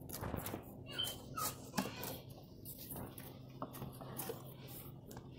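Cardboard shipping carton being handled by hand: scraping, rubbing and light taps on the cardboard, with a few short squeaks about a second in.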